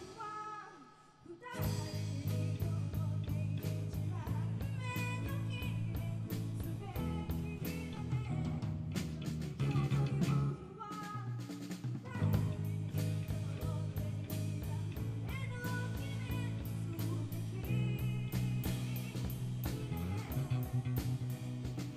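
Rock band playing live: drum kit keeping a steady beat under bass and guitar. The sound thins out briefly about a second in, then the full band comes back in.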